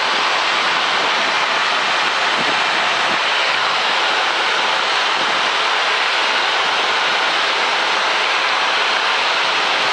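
Steady cabin noise of a Grumman single-engine light aircraft in flight: engine, propeller and airflow blended into an even, unchanging rush, on approach to land at about 80 knots.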